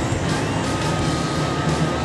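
Background music, with a sustained wavering note coming in about a third of the way through.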